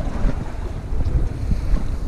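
Wind buffeting the camera microphone: an uneven low rumble.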